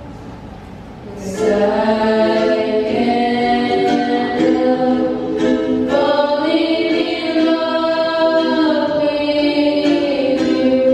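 Three young female voices singing a song in harmony into microphones, with a ukulele accompaniment. The voices come in after a quiet first second and hold long notes.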